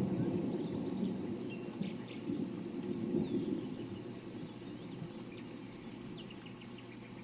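Steady rain hiss with short bird chirps and, near the end, a quick chirping trill. Under it a low rumble slowly dies away.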